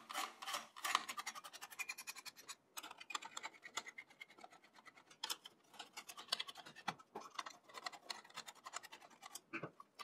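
A screwdriver working out the screws that hold a desktop PC's CPU cooler: a faint, fast run of fine metallic clicks and scratches, with a few sharper clicks among them.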